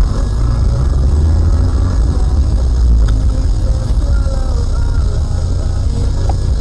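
A car driving: a steady low rumble of engine and road noise.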